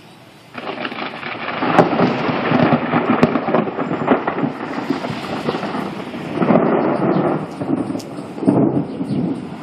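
Thunder: a loud rumble breaks in about half a second in and rolls on with several swells.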